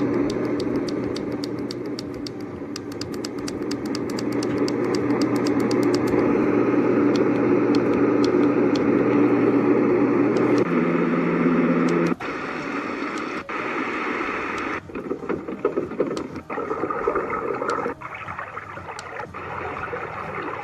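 A white-noise sound machine playing its built-in soothing sounds through its speaker: a steady rushing noise that switches abruptly to a different sound track several times.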